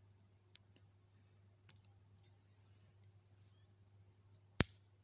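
Faint metallic clicks of a lock pick working the pins of a small four-pin aluminium padlock, then one loud sharp click near the end as the lock opens.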